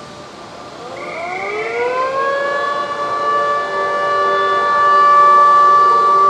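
A siren winding up: several tones glide up together in pitch over a second or two, then hold as a steady chord that grows louder toward the end.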